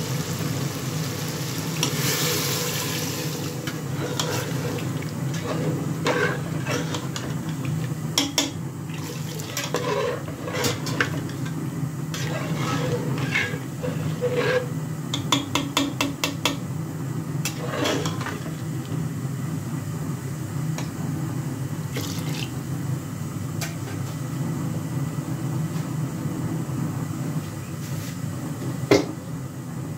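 Water pouring into an aluminium pressure cooker of lentils about two seconds in, then a metal ladle stirring and clinking repeatedly against the pot's side, over a steady low hum.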